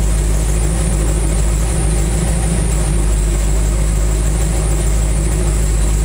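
1984 Chevy C10's V8 engine idling steadily with a low, even rumble, its exhaust running without working mufflers. The engine is warmed to about 200°F, and the electric cooling fan has not yet switched on.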